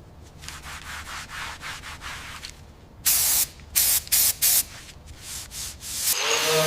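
Workshop tool noise as an engine is taken apart: light clicking and scraping, then four short, loud hissing bursts about three seconds in. A steady whine starts near the end.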